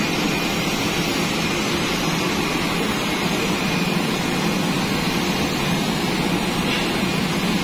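Steady rushing noise of an automatic spray painting booth at work: air moving through the booth and the spray system running, with a faint steady high tone.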